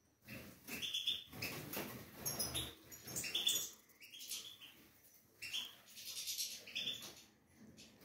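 Several small aviary finches chirping in quick, overlapping bursts of short high calls, over a low rustling.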